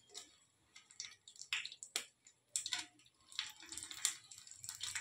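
Hot mustard oil with mustard seeds and broken dried red chillies in it, sputtering and crackling in a frying pan. Scattered faint pops and short sizzles become denser over the last second and a half as the chillies settle in the oil.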